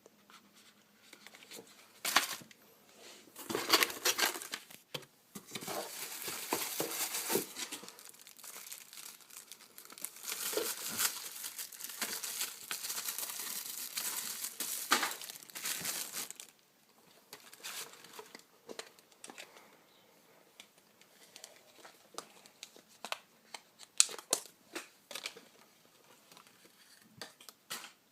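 Packaging crinkling and tearing as it is handled and pulled open, in dense rustling bursts for about the first sixteen seconds. After that come scattered light taps and clicks.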